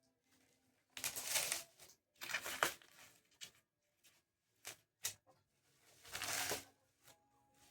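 Packaging being handled: three bursts of rustling and crinkling, with a couple of sharp clicks between the second and third.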